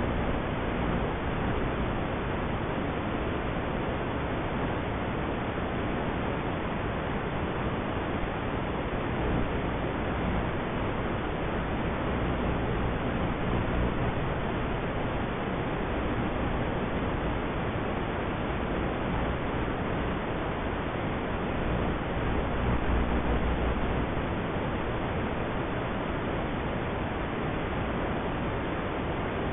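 Steady, even hiss of static from an analog FPV video link's audio channel, as recorded by FPV goggles' DVR. A low rumble swells briefly around ten and again around twenty-three seconds in.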